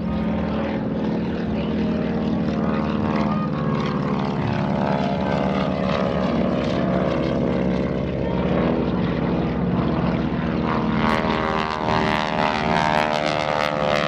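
North American T-6 Texans flying past, their Pratt & Whitney R-1340 nine-cylinder radial engines and propellers droning steadily. The sound turns rougher and crackling in the last few seconds.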